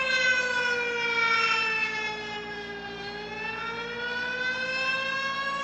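Tornado warning siren wailing: its pitch falls slowly to a low about halfway through, then climbs again.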